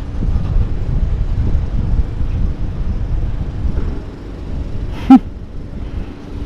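Wind buffeting the microphone as a low rumble, with one brief, sharp pitched knock about five seconds in.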